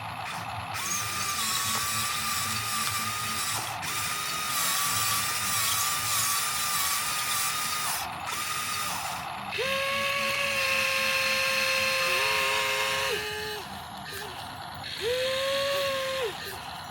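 Electric drive motors and metal gearboxes of a Huina 1594 RC excavator whining in stretches of one to four seconds, each starting and stopping abruptly as a function is worked, over a fast rattling of gears. The whine drops to a lower pitch about ten seconds in.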